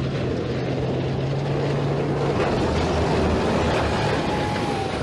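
Water running and splashing in a steady rush as a toy tank is washed.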